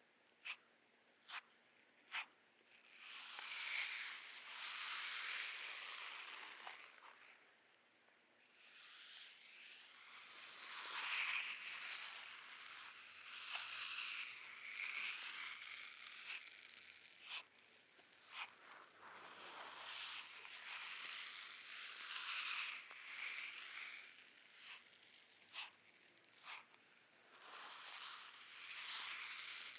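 Sensory brush scratching over a person's back in scratchy strokes, with a few sharp clicks in between.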